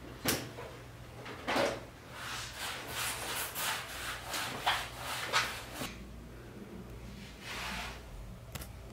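Handling sounds: a quick run of short rubbing and scraping strokes with a few light knocks for about six seconds, then one more rub and a sharp click near the end.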